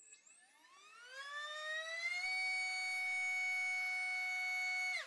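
Small brushless drone motor (BrotherHobby T1 1407-3600KV) driving a three-blade 3-inch propeller on a thrust stand: a whine that rises in pitch over about two seconds as the throttle comes up, then holds a steady high pitch at full throttle, around 44,000 RPM. It cuts off suddenly near the end as the throttle is dropped.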